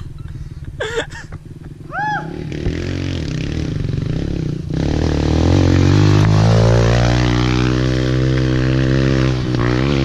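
Small Kawasaki KLX four-stroke single-cylinder pit bike approaching and riding past close by. The engine note swells, is loudest about halfway through, and drops in pitch as the bike goes by.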